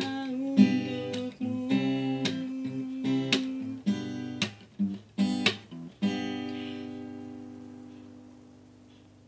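Steel-string acoustic guitar strummed in chords, with sharp strokes. About six seconds in, a final chord closes the song and rings out, fading away slowly.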